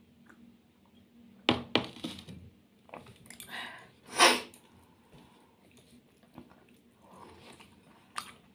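Close-up eating sounds of rice and potato-okra curry being eaten by hand. There are two sharp clicks a little after a second in, wet squishing, and a loud mouth sound about four seconds in as a handful goes into the mouth, followed by quieter chewing.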